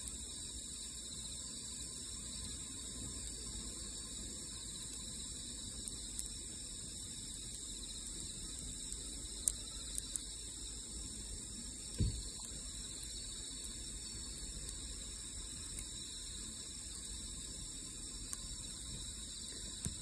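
Steady chorus of night insects singing in the grass, a continuous high trilling. A few short clicks are scattered through it, with one louder knock about halfway in.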